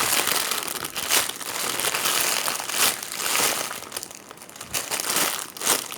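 Jumbo squishy toy being handled and squeezed: an irregular rustling and crinkling with a few sharper crackles about a second in, near three seconds and near the end.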